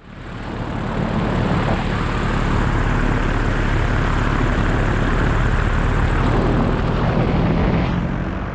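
Vittorazi Moster 185 two-stroke paramotor engine running steadily and driving its propeller, with rushing air. It cuts in suddenly and fades out near the end.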